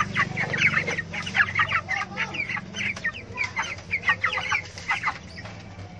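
A flock of 25-day-old white broiler chickens calling together: many short, high calls overlapping several times a second. A low steady hum sits beneath them.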